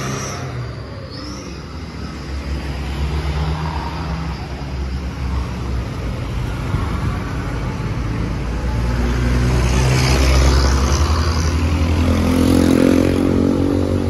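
Road traffic passing close by: a van, cars and a motorcycle driving past, the engine noise swelling about ten seconds in.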